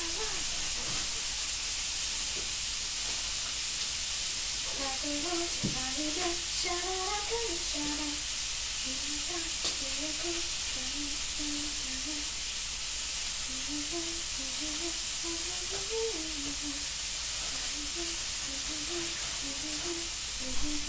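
A person humming a wordless tune in short stepping notes, starting about five seconds in, over a steady hiss of food frying in a pan.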